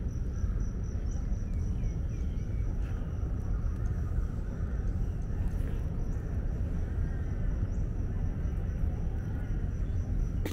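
Steady low rumble of outdoor background noise, with faint high chirps now and then and a thin steady high tone over it.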